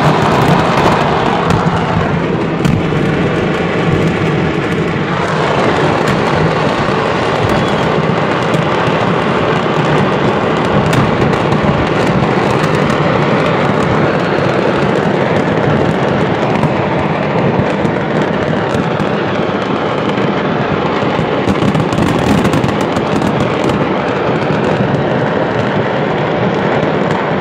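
Stockpiled fireworks at a fireworks market exploding in a continuous, dense crackle of bangs and pops as the market burns, with a brief pitched tone a few seconds in.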